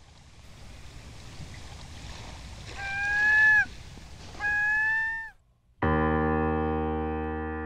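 Intro sound design: a wash of noise that swells, two short pitched calls about a second apart, each holding one pitch and dipping at the end, then a sustained electric piano chord that slowly fades.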